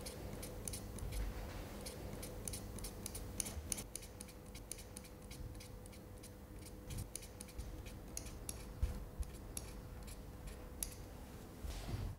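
Faint, irregular small ticks, several a second, of a utility-knife blade tip pricking and scratching white dots into a graphite drawing on paper, over a faint steady hum.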